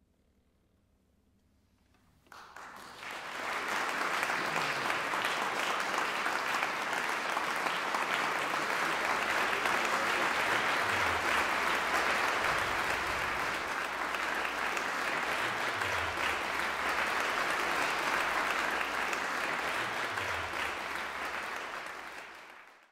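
An audience breaks into applause about two seconds in, clapping steadily and loudly, and the sound fades out at the very end.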